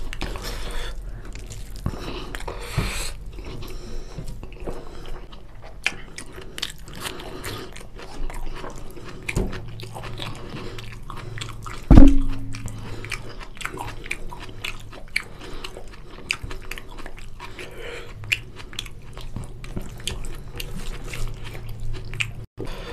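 Close-up chewing and wet mouth sounds of a man eating chicken curry and rice by hand, with squishy sounds of his fingers mixing rice and curry on a steel plate. One loud thump about halfway through.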